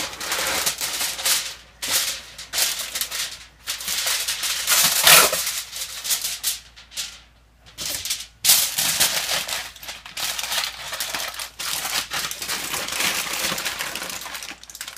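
A sheet of aluminium foil crinkling and rustling in bursts as it is pulled off the roll and crumpled by hand, with a short pause about halfway through.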